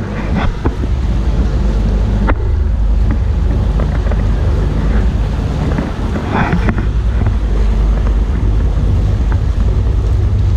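Sightseeing boat running steadily under way: a low, even engine drone mixed with wind buffeting the microphone and the wash of the sea.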